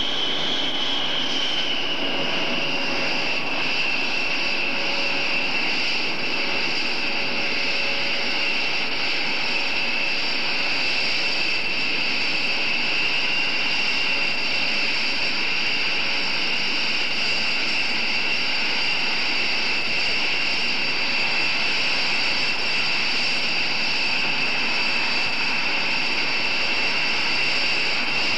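B-1B Lancer's General Electric F101 turbofan engines running at taxi or idle power: a steady high-pitched jet whine over an even roar, dipping slightly in pitch about a second in and then holding steady.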